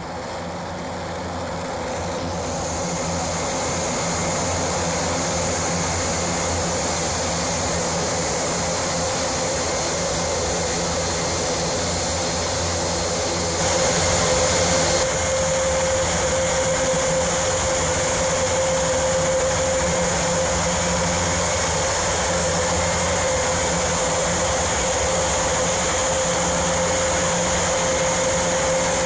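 Airbus A400M's four turboprop engines running as it taxis: a steady propeller drone with a held whine.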